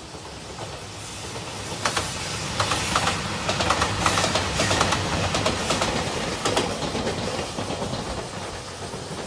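JR Shikoku 2700 series diesel express train passing. The noise builds from about a second in, carries an irregular run of clicks from the wheels over rail joints, and fades near the end.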